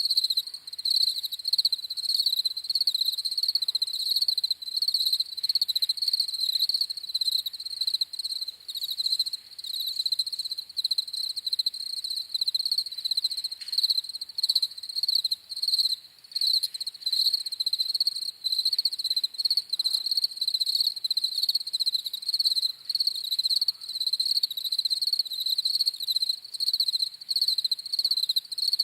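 Crickets chirping in a dense, continuous chorus, a rapid pulsing trill that never lets up.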